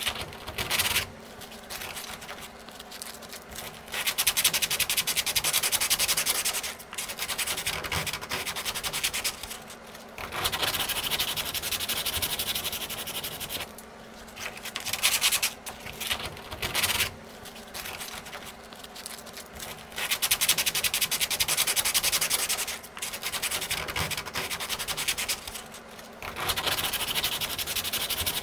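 Fiberglass being sanded by hand with sandpaper on a sanding pad, in stretches of quick back-and-forth scratching strokes with short pauses between. The damaged laminate is being sanded out around a cracked, water-damaged section.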